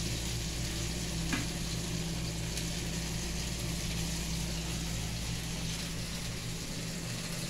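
Tortillas frying in a pan on a gas stove: a steady sizzle over a low steady hum, with one light click about a second in.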